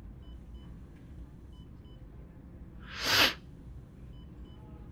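Faint hospital patient-monitor beeps, short high double beeps repeating a little over once a second, over a low steady hum. About three seconds in comes one loud, breathy exhale close to the microphone.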